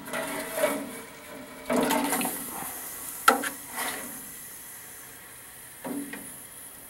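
Steel trail cam box being lowered into a pot of hot zinc phosphate parkerizing solution: liquid sloshing and several knocks of metal on the steel pot, the sharpest a little over three seconds in, over a steady hiss from the propane burner heating the bath.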